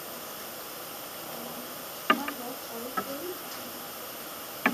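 Numeral flash cards handled on a metal binder ring: sharp clicks about two seconds in, again a second later, and a louder one near the end, over a steady background hiss. A faint voice murmurs briefly between the first two clicks.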